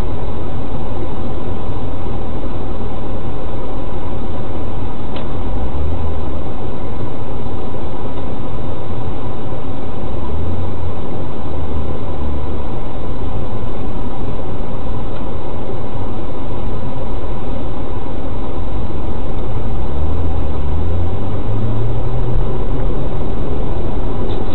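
Loud, steady motor-vehicle engine and road noise from a vehicle on the move. The low engine note climbs steadily over the last few seconds as it speeds up.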